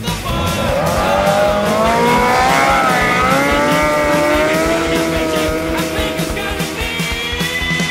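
Nitrous-equipped Yamaha Apex snowmobile's four-stroke four-cylinder engine revving hard as it launches, its pitch climbing over the first couple of seconds, then holding high before fading near the end. Rock music plays underneath.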